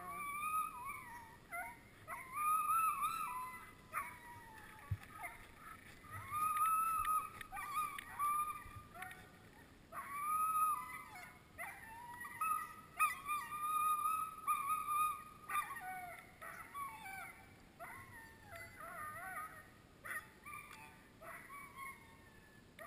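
Harnessed sled huskies whining and howling, over and over, in long wavering high-pitched cries, the excited noise of a dog team held back before a run.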